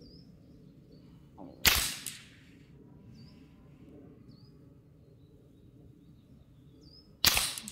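Two shots from a semi-automatic Rimfire Magic (Ruger 10/22 variant) .22LR rifle firing Eley subsonic hollow-point rounds, about five and a half seconds apart, each a sharp crack with a short tail. Small birds chirp in the background.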